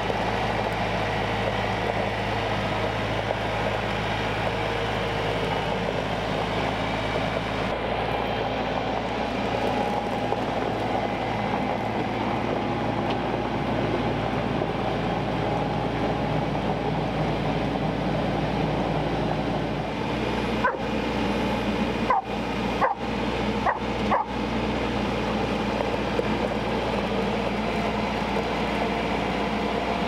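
TYM T574 tractor's diesel engine running steadily. A dog barks about five times in quick succession about two-thirds of the way through.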